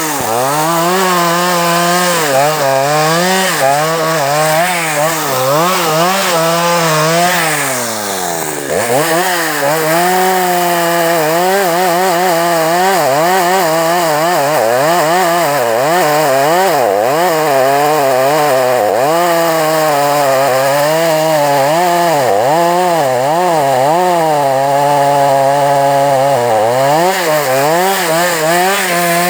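Two-stroke chainsaw running at high revs, its pitch dipping and recovering again and again as it works through wood. About 8 s in the engine drops almost to idle, then revs back up.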